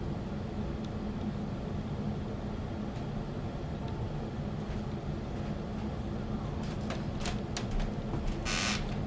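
Steady low mechanical hum with a faint tone, then a few sharp clicks and a short hiss near the end.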